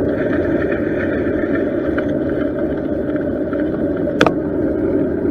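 Steady muffled rumble of riding vibration, heard through an action camera sealed in its plastic waterproof case on a bicycle, with one sharp knock about four seconds in.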